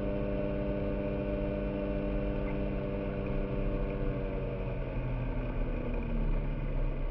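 Small fishing boat's motor running with a steady hum; its higher tones fade out about five seconds in, leaving a lower hum.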